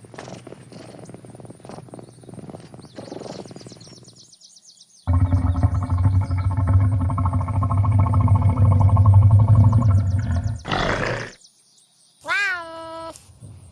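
A big cat roaring: one loud, deep, drawn-out roar lasting about six seconds, starting about five seconds in. Near the end comes a short cat meow.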